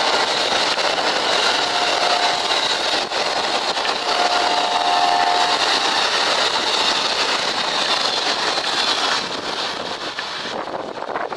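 Amtrak passenger cars passing at speed: a steady rush and rumble of steel wheels on the rails, which falls away about nine to ten seconds in as the last car goes by.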